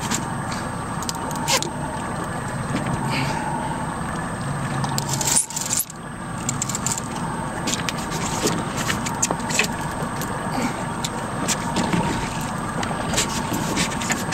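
Steady hum of an idling boat engine, with many scattered sharp metallic clicks and rattles from the fishing reel and tackle as a big shark is fought on a heavy rod. The sound dips briefly about five and a half seconds in.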